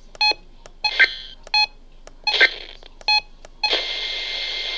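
Emergency Alert System end-of-message: short digital data bursts of screechy tones, alternating with brief electronic beeps. Steady radio receiver hiss returns near the end.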